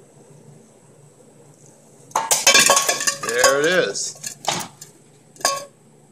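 Steel ball bearing dropping into a stainless steel pot with a loud clang about two seconds in, then rattling and rolling around inside it, with two more single clanks after. The heated ball has just burned its way down through the panel's foam core and fallen out at the bottom.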